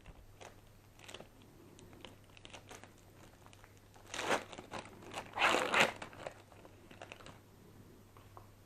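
Small handling noises: a few faint clicks and two short bursts of crinkling rustle, the louder ones about four and five and a half seconds in.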